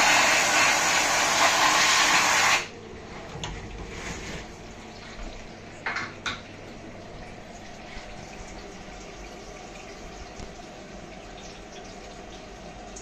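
Flood coolant spraying and splashing inside a CNC mill's stainless steel enclosure, a loud steady hiss that cuts off suddenly about two and a half seconds in. After it come a few faint clicks and a low steady hum.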